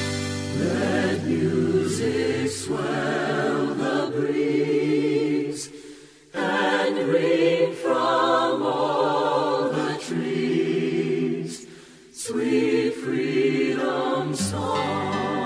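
Background music with singing voices holding long, wavering notes in phrases, with short pauses about six and twelve seconds in.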